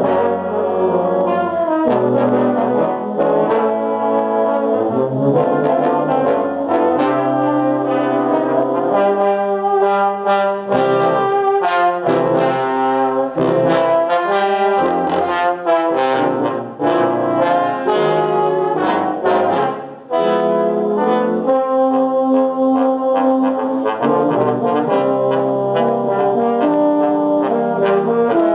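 Low brass ensemble of trombones, euphonium and tuba playing a piece in several parts, with sustained chords and moving lines. The playing breaks off briefly about two-thirds of the way through, then goes on.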